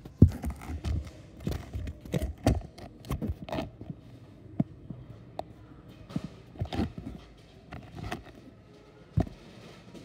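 A string of handling knocks and taps as a camera is moved about and set down on a concrete floor. They come thick in the first few seconds, then thin out to scattered taps, with one sharp knock near the end.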